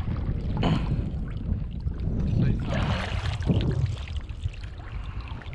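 Shallow seawater sloshing and splashing, over a low rumble on the microphone, with faint voices.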